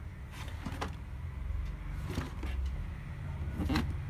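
Cardboard motherboard box being handled and turned in the hands, giving a few brief scrapes and taps, the loudest near the end, over a steady low background rumble.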